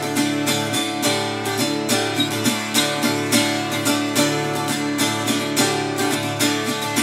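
Solo acoustic guitar playing an instrumental tune, strummed in a steady rhythm.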